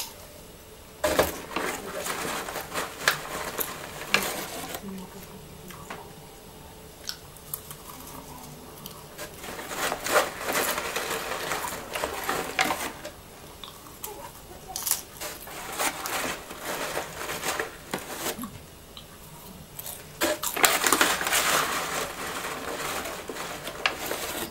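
Popz salted popcorn bag rustling and crinkling as a hand digs into it for popcorn, in about four spells with sharp crackles.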